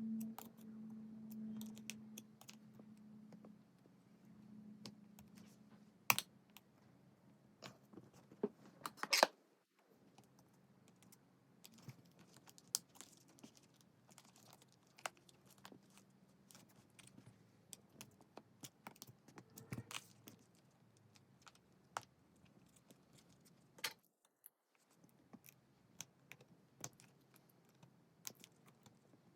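Scattered small clicks and taps of plastic and metal steering-wheel parts being handled and fitted by hand, with a few louder knocks about six and nine seconds in.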